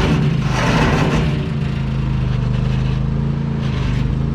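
Riding lawn mower's small engine running steadily while towing a train of welded trailer cars. A sharp knock at the start is followed by about a second of clatter.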